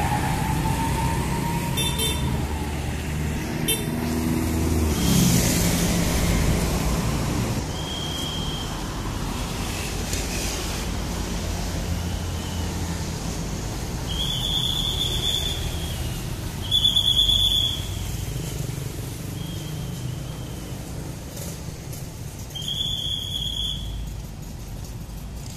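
Road traffic of motorcycles, cars and trucks passing, with engine and tyre noise; one passing vehicle's engine note falls about four seconds in. From about eight seconds in come several short high-pitched vehicle horn toots, the loudest about seventeen seconds in.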